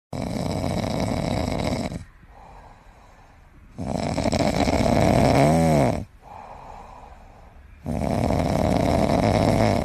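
French bulldog puppy snoring: three long, loud snores of about two seconds each, with quieter breathing between them. The middle snore carries a brief whistle that rises and falls in pitch.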